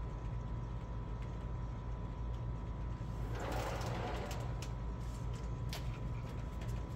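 Steady low mechanical hum with a faint constant high tone over it. About three seconds in a brief rushing noise swells and fades, followed by a few sharp clicks.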